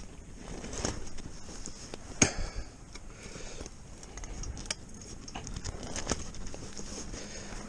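Footsteps crunching irregularly through snow and brush, with a sharper knock about two seconds in.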